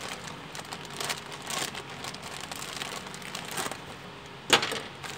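Clear plastic bag crinkling and rustling as it is handled and squeezed, with irregular small crackles. One sharp click comes near the end.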